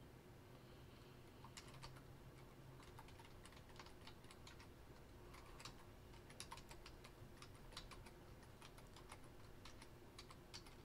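Faint computer keyboard typing: a run of short, irregular key clicks.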